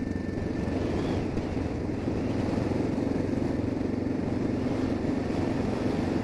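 Suzuki DR650's single-cylinder engine running steadily while riding, mixed with a steady rush of wind noise, heard from inside a helmet through a cheap dictaphone microphone.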